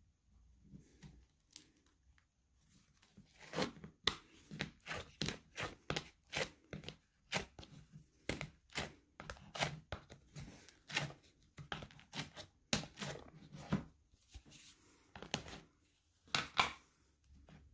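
Slime being squished, stretched and poked by hand, giving a run of sharp sticky clicks and pops about two a second, with quieter soft squishing at the start.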